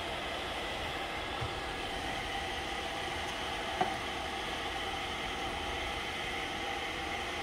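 Steady mechanical hum with several faint whining tones, and a single light click a little under four seconds in.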